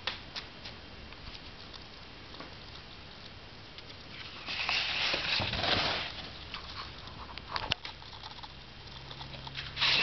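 Soft rustling with scattered light clicks, swelling into a louder rustle for a second or two about halfway through and again near the end.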